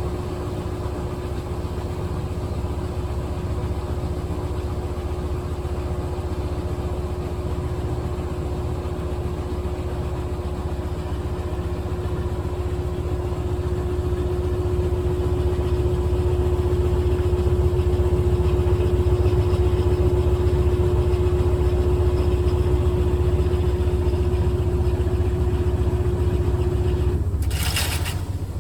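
GE top-load washing machine spinning: a steady low rumble from the drum with a steady motor hum, growing somewhat louder midway. Near the end the hum cuts off with a brief rushing noise.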